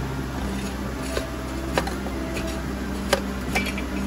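A few sharp metallic clicks from a spanner on an oxygen sensor's hex, screwed into a catalytic converter pipe, over a steady low background hum.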